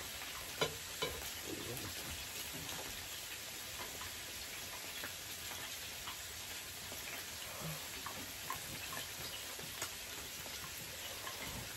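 Korean BBQ meat sizzling on an electric grill plate, a steady frying hiss. A few light clicks of chopsticks against bowls and the grill come through it now and then.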